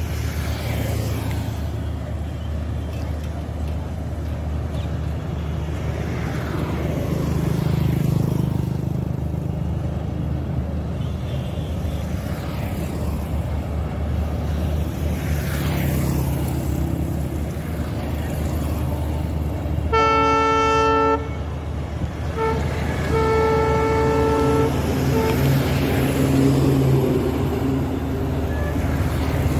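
Diesel locomotive hauling an express train slowly over a river bridge with a steady low rumble. Its horn sounds twice about two-thirds of the way through: one blast of about a second, then a longer blast of about two seconds just after.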